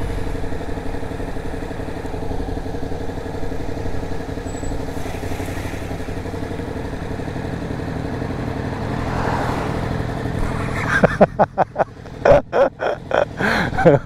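2006 KTM 990 Super Duke's V-twin engine running steadily at road speed, heard from the rider's seat. It then turns choppy, breaking into short, uneven bursts in the last few seconds as the bike slows behind another motorcycle.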